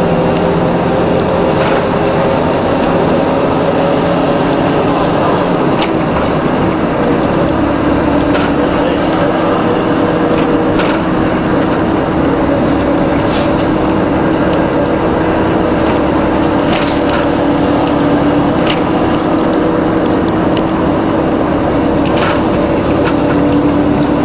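Ikarus 280.10 bus's diesel engine running under way, heard from inside the bus, its note drifting up and down with speed. Sharp rattles and clicks from the bus body come every few seconds.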